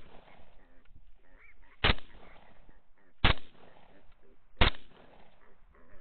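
Three rifle shots, about a second and a half apart, fired at a running group of feral hogs. Fainter hog squeals and grunts come between the shots.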